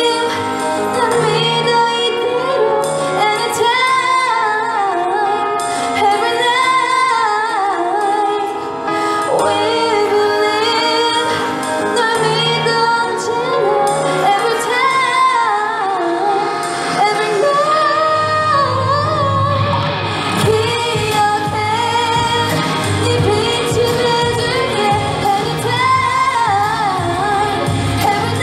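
A woman singing a pop song live into a microphone, amplified over an instrumental accompaniment. About eighteen seconds in, the accompaniment fills out with a bass line and a beat.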